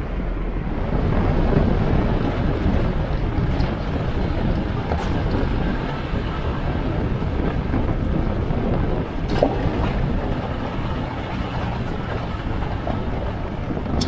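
Lexus GX 460 on BFGoodrich KO2 all-terrain tyres driving a gravel dirt road: a steady rumble of tyres on dirt and gravel with the suspension working, broken by a few sharp ticks.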